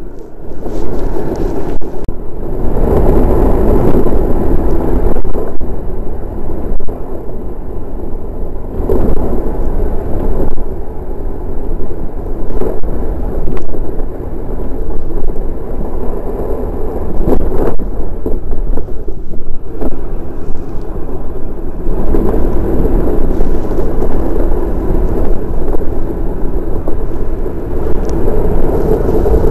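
Continuous rumble of a DN iceboat's steel runners sliding over hard ice while under sail, mixed with wind rushing across the microphone. The noise swells and eases several times.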